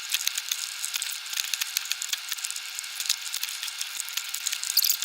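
Hand tools working the wires onto a wall outlet's terminal screws: a dense, irregular run of small mechanical clicks and ratcheting, thin and high with no low end.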